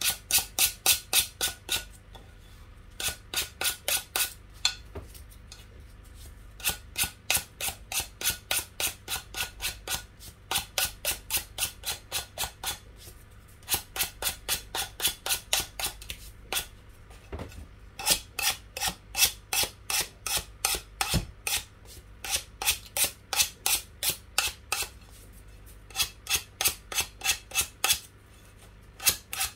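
Emery board filed in quick back-and-forth strokes along the edge of a glass plate, rasping off the excess decoupage napkin and glue. About five strokes a second, in runs of a few seconds with short pauses between.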